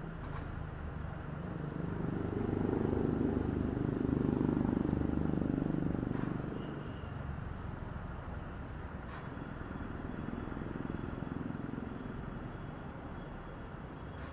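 Outdoor background with a road vehicle passing: a low rumble that swells over a couple of seconds and fades, then a fainter second swell later on. A few faint clicks are heard.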